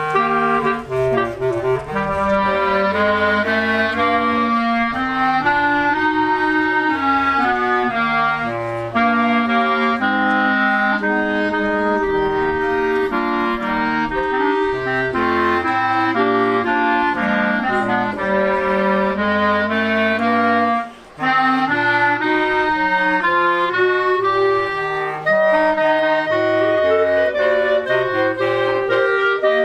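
Small clarinet ensemble playing a piece together: clarinet melody over a bass clarinet line, with one short rest about two-thirds of the way through.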